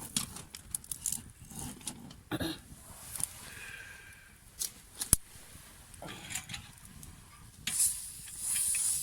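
Scattered small clicks and metal taps as a Takei kerosene pressure burner is handled, with one sharp click about five seconds in and a short hiss near the end. The burner is losing pressure and running out of fuel.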